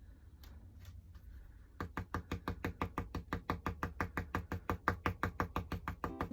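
Stencil brush dabbing acrylic paint through a stencil. It starts with a few separate taps, then about two seconds in settles into rapid, even tapping at about eight taps a second. Music comes in near the end.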